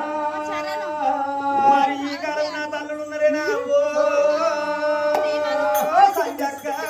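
Oggu katha folk singing: a man's voice sings long, drawn-out notes that slide between pitches, over a steady held tone.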